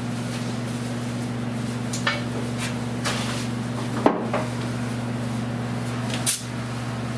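Short sharp metallic knocks and clinks from hand tools against sheet metal as a welded-in patch is worked, four of them, the loudest about four seconds in, over a steady low electrical hum.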